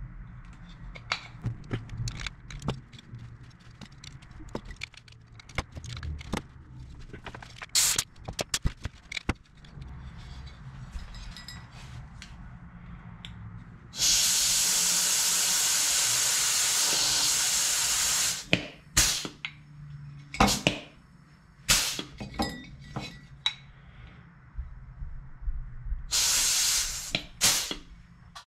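Compressed air hissing from a handheld pneumatic tool worked against a small aluminium part. It comes in one long steady burst of about four seconds midway and a shorter burst near the end. Before it come scattered clicks and light metal clinks of hand riveting and handling small parts.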